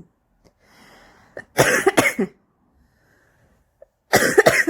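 A woman's smoker's cough from cigarette smoking: a faint breath in, then a coughing fit about a second and a half in, and another near the end.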